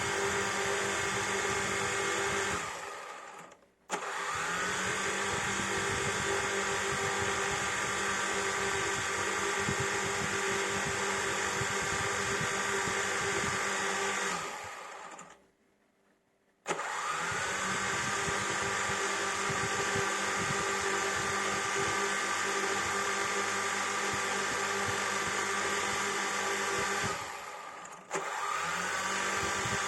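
Quadcopter drone's electric motors and propellers whining steadily. The sound fades out three times and cuts back in sharply, the pitch sliding up as it returns.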